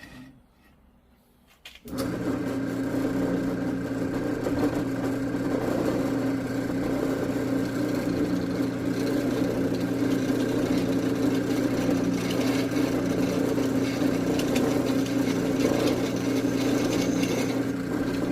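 Electric drill switched on with a click about two seconds in, its motor running at a steady speed with an even hum and whir while drilling into a hardened steel chainsaw bar.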